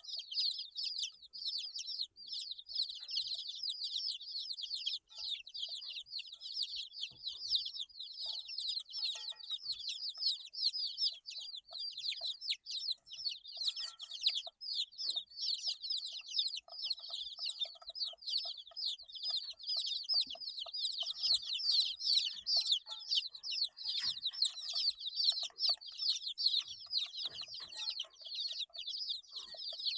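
A group of 8-day-old baby chicks peeping continuously, many short high-pitched chirps overlapping. Some lower, softer calls join in from about a third of the way in.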